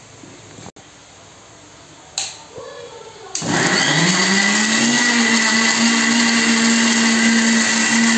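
Electric mixer grinder with a steel jar grinding onion, tomato and green chilli into paste. It is switched on a little over three seconds in, and its motor rises in pitch for about a second and a half, then runs steadily and loudly with a high whine over it. A single knock comes a second or so before it starts.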